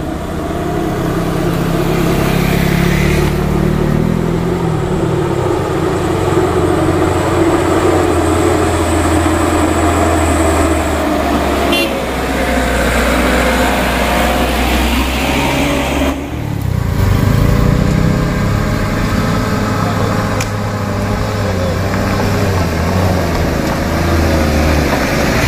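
Vehicle engines labouring up a steep gravel climb: a motorcycle early, then a light truck's diesel engine running hard under load. The sound changes abruptly about sixteen seconds in as another vehicle's engine takes over.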